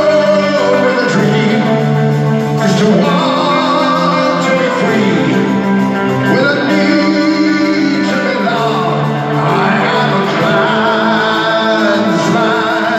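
A heavy metal band playing live in an arena: long held sung notes over electric guitars, heard from high up in the stands.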